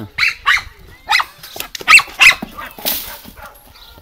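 Dog barking, about five sharp barks in quick succession, the loudest about two seconds in.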